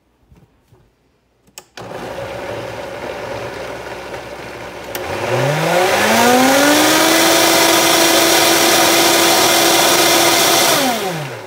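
High-powered countertop blender blending a thick chocolate banana smoothie: it switches on about two seconds in at low speed, ramps up with a rising whine about five seconds in, runs steadily at full speed, then winds down near the end.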